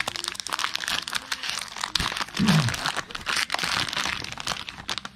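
Plastic wrapper of a trading-card pack crinkling and crackling as it is torn open, the cards rustling in the hands.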